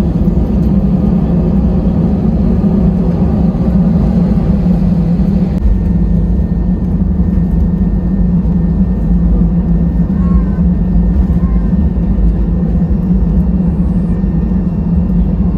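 Steady cabin noise of an Airbus A320 taxiing after landing: a low drone from the jet engines with a rushing hiss over it. About five and a half seconds in, the higher hiss drops a little and a faint thin tone comes in.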